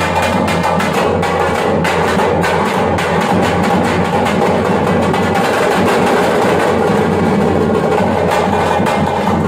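Thappattam (parai) frame drums beaten with sticks in a dense, continuous rhythm.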